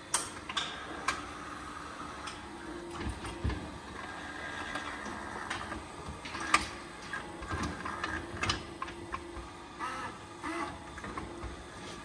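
Irregular clicks and knocks of metal and a cow's hoof at a hoof-trimming crush, over a faint steady hum.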